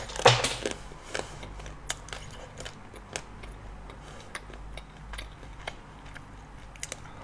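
Close-miked eating: a sharp crack as the hard shell of a dessert is bitten just after the start, then chewing with scattered small mouth clicks and smacks.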